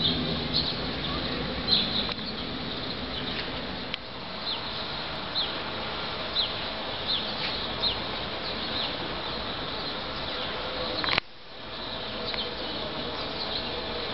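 Small birds chirping, short high chirps coming irregularly over a steady outdoor hum. The sound drops away suddenly about eleven seconds in, then comes back.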